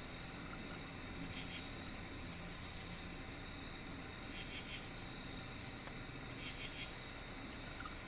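Crickets and other night insects: a steady high trill, with short pulsed bursts of chirping every second or two.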